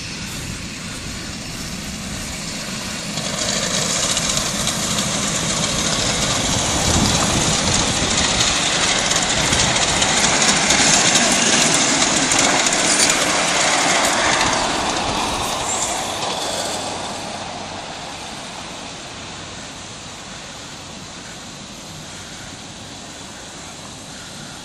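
A long miniature railway train of fourteen ride-on carriages rolling past on the track, growing louder as it comes close and fading away after it passes.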